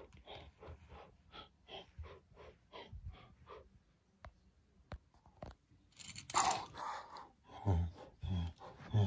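A person making breathy mouth sound effects: quick rhythmic puffs, about three a second, that fade out, then a loud hiss about six seconds in and a few low grunts near the end.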